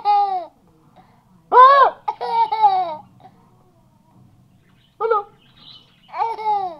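A toddler laughing in short high-pitched bursts, about three of them with pauses between.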